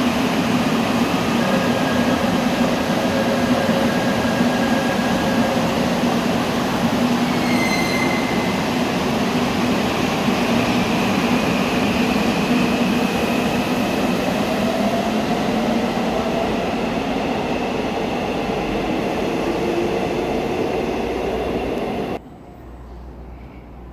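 Donghae Line electric commuter train at an underground platform, then pulling away with a rising motor whine over the running noise. A brief high tone sounds about eight seconds in, and the sound drops off abruptly near the end.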